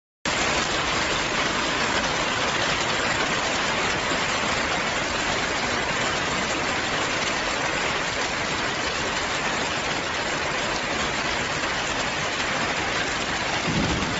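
Hail falling hard, a steady dense patter of hailstones that starts suddenly and keeps on without let-up.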